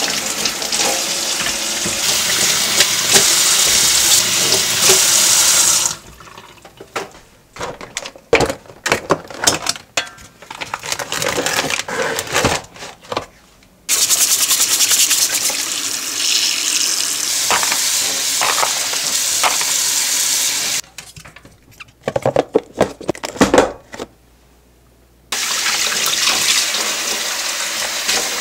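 Kitchen tap running into a stainless steel sink as food is rinsed under the stream, in three long stretches. Between them the tap is off and there are scattered knocks and handling noises of dishes and food.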